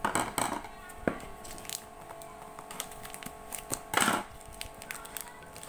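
Hands handling and picking at a cardboard parcel wrapped in plastic packing tape: crackling and crinkling of the tape, with louder rustles near the start and again about four seconds in.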